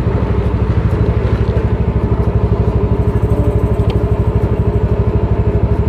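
Motor scooter engine running slow and steady, close to the microphone, with a rapid, even pulse.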